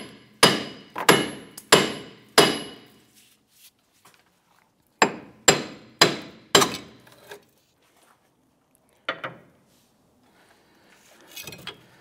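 Hammer blows on the back of the steel flange of a Ford Five Hundred rear wheel hub, each with a short metallic ring, driving the seized hub and bearing out of the knuckle. Five blows come about two-thirds of a second apart, then four more a few seconds later, then a single blow about nine seconds in.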